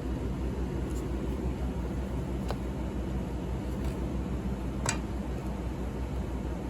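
Steady low hum of background machinery, like a fan, with a few faint light clicks, the sharpest about five seconds in.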